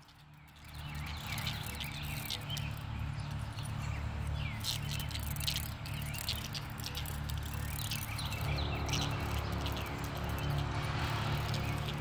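Cicada giving short, irregular buzzing squawks when disturbed, over a steady low hum.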